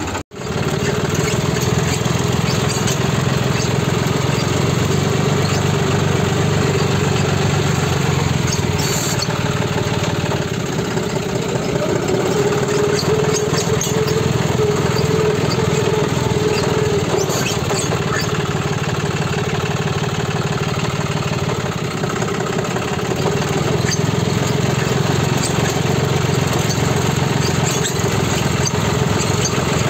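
John Deere 5310 tractor's three-cylinder diesel engine running steadily as the tractor is driven, heard from the driver's seat. A brief cut-out in the sound comes just after the start.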